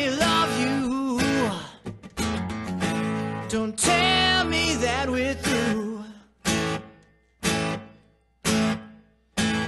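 Man singing with a strummed acoustic guitar, his voice sliding up and down in pitch. About two-thirds of the way in the singing stops, and three single guitar chords are struck one at a time, each ringing out and fading before the next.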